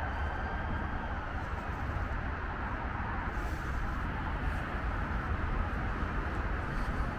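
Wind buffeting the camera's microphone: a steady low rumble with a hiss over it.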